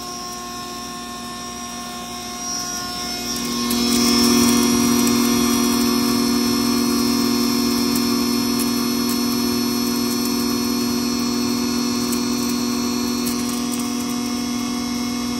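A 20 hp double-chamber stoneless maize grinder running with a steady motor and blower hum. About four seconds in it gets louder and stays louder as maize kernels feed into the grinding chamber and put it under load.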